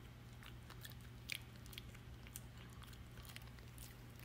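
A Shih Tzu chewing a treat: faint, irregular small crunches, the loudest about a second and a half in.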